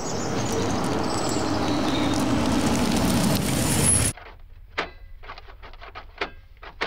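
Classic sports car driving up, its engine and road noise growing louder for about four seconds and then cutting off suddenly. After that, a quiet room with a few faint clicks and taps.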